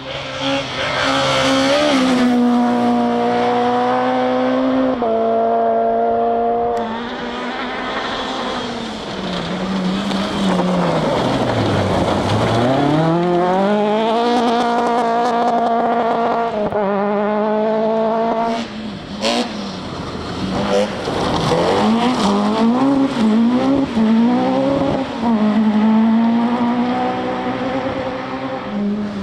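Rally car engines driven hard: revs climbing and dropping with gear changes, with one long fall as the car slows and then a steep climb as it accelerates away. A few sharp cracks come about two-thirds of the way through.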